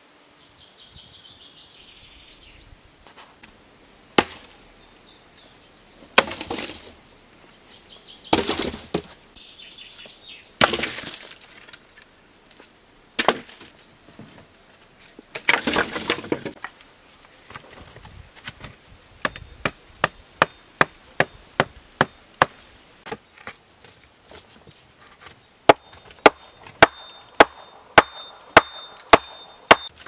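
Wooden sticks being knocked and clattered into place as a shelter wall of upright sticks goes up. Through the first half there is a heavy wooden knock with a short rattle every couple of seconds, and then, just past the middle, a steady run of sharp knocks, about two a second.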